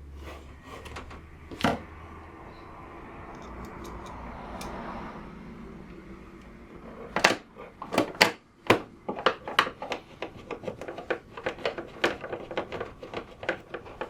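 Plastic UPS casing being handled on a bench: a single knock about two seconds in, then from about halfway a quick irregular run of sharp plastic clicks and knocks as the upturned case and its parts are worked on.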